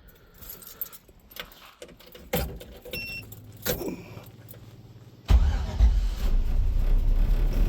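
Light jangling and clinking, then about five seconds in the LS-swapped V8 comes in loudly and runs steadily with a heavy low rumble; the engine has a known misfire.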